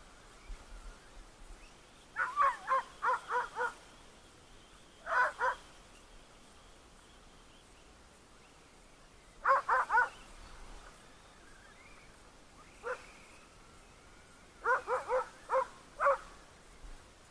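Dog barking in several quick bursts of short, high-pitched barks, three to five in a row, with single barks between.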